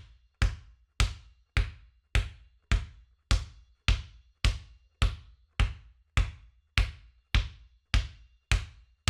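Basketball dribbled steadily on a hard floor: evenly spaced bounces, a little under two a second, each a sharp thud with a short ringing tail.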